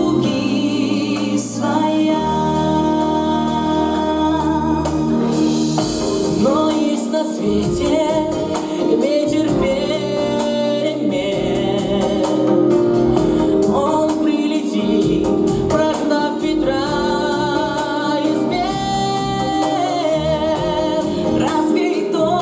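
A song playing: singing voices carry a melody with held, wavering notes over an instrumental accompaniment with a bass line.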